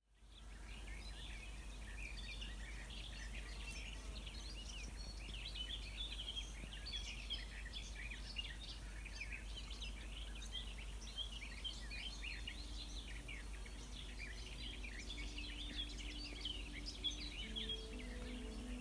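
Several songbirds singing together, a dense, continuous mix of short chirps and trills over a steady low wind rumble, fading in at the start. Soft held music tones come in faintly and grow near the end.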